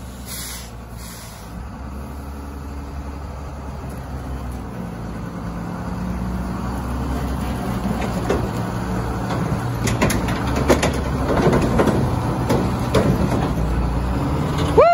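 Heavy diesel engine of a wheel loader working under load as it moves a motor coach off a trailer, its drone growing louder. In the second half, a run of knocks and clanks as the coach shifts on the trailer deck.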